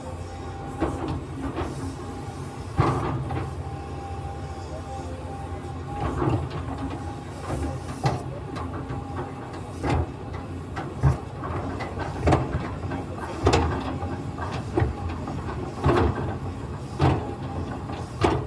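Volvo EC210 hydraulic excavator working in a trench: a steady diesel engine and hydraulic hum, with a sharp knock every second or so.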